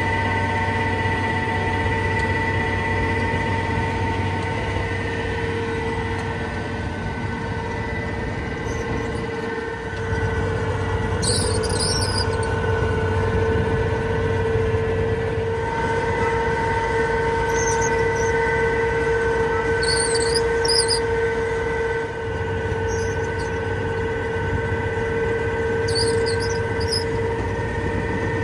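Tractor and Dewulf Certa 40 combination potato planter with built-in tiller running steadily under working load, a continuous mechanical hum with a steady whine. Short high squeaks come through several times from about the middle on.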